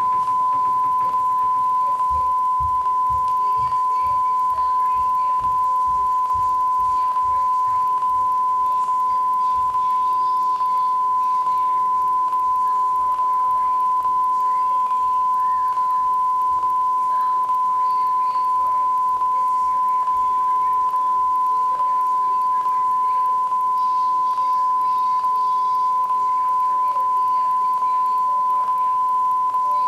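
A steady, unwavering test tone at one pitch from the end of a VHS tape's playback, with a faint rapid low clicking underneath that fades out over the first ten seconds or so.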